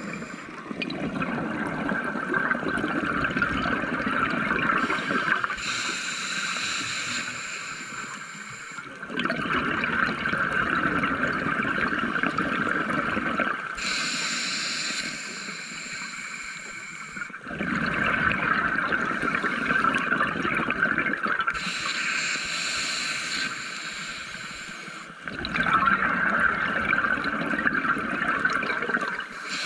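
Scuba diver breathing through a regulator underwater: a hiss on each inhale, then a louder gurgling rush of exhaled bubbles, in a slow, even cycle of about eight seconds, four breaths in all.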